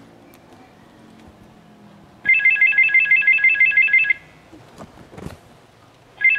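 Mobile phone ringtone: a rapid electronic trill of alternating high beeps. It rings for about two seconds, pauses for about two seconds, then starts again near the end.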